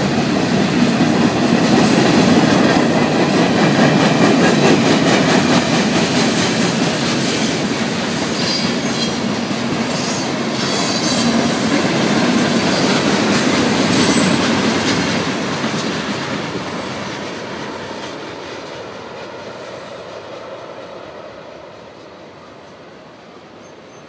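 Freight train's tank cars and coil cars rolling past, steel wheels clattering over the rails with brief high squeals. The sound fades steadily from a little past halfway as the end of the train goes by.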